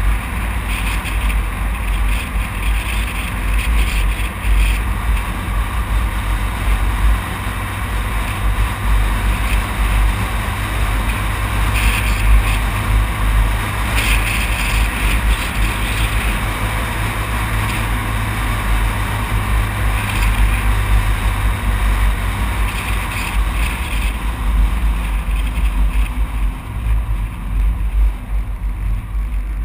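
Steady wind buffeting the microphone, with tyre and road noise from a vehicle travelling at speed on a paved highway.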